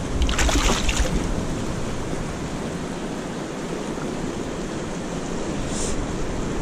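Sea surf washing over shore rocks, with wind buffeting the microphone. There is a brief louder burst of noise about half a second in.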